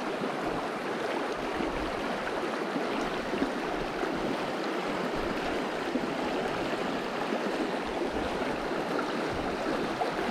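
Water of a shallow mountain stream rushing steadily through riffles.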